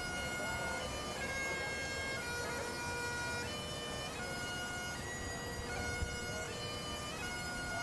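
Bagpipes playing a tune: the chanter steps between held notes over a steady drone.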